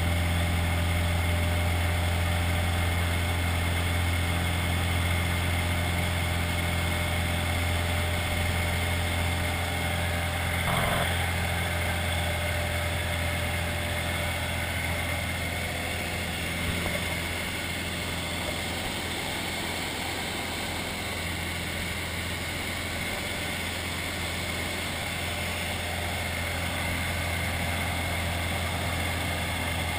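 Engine and propeller of a single-engine light aircraft droning steadily in flight, heard from inside the cockpit, with a deep hum under it. The level eases off slightly about halfway through.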